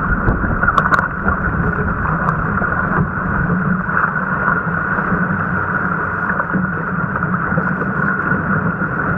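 Steady rush of wind on the microphone and water hissing and splashing along a surfski's hull as it is paddled through choppy surf, with spray breaking over the boat. A couple of sharp clicks come about a second in.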